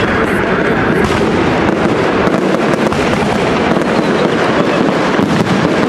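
Aerial fireworks bursting in a dense, continuous barrage: many overlapping pops and crackles with no pause between them.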